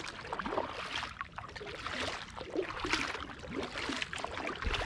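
Kayak paddle strokes in calm water: water splashing and trickling off the paddle blades, with gurgling along the hull.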